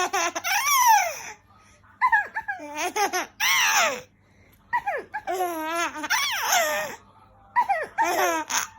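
A small child laughing hard in four high-pitched bursts, with short breaks between them.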